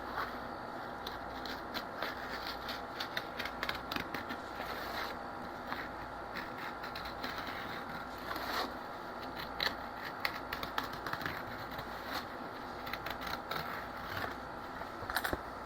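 Razor blade cutting and scoring a piece of cardboard, with irregular scratching strokes and small clicks as the cardboard is handled, over a steady low background hum.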